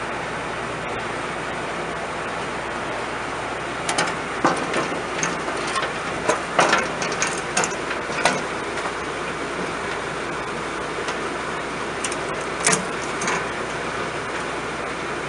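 Clanks and rattles of a sheet-metal guard being fitted back over the combine's rotor drive pulley, in a cluster of knocks about four to eight seconds in and again around twelve to thirteen seconds. A steady mechanical hum runs underneath.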